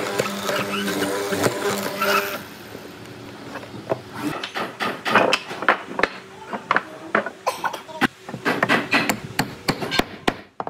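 A steady hum cuts off about two seconds in. Then comes a run of irregular hammer knocks on wood, getting quicker toward the end.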